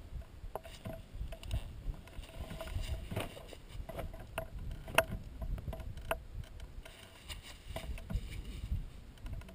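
Wind buffeting the microphone as a gusting low rumble, with scattered sharp clicks and knocks of gear being handled.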